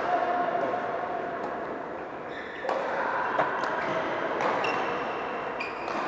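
Badminton rackets striking shuttlecocks in sharp clicks, mixed with short high squeaks of sports shoes on the court floor, over the steady din of several games in a large hall.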